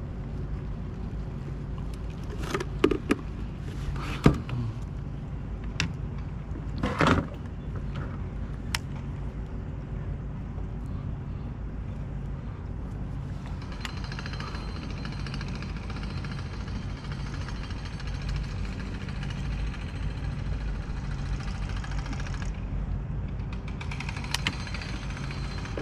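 Steady low rumble of wind and water on an action-camera microphone, with a handful of sharp knocks and clicks from tackle and gear being handled in a kayak during the first several seconds. About halfway through, a fainter steady hiss joins in, and it drops out shortly before the end.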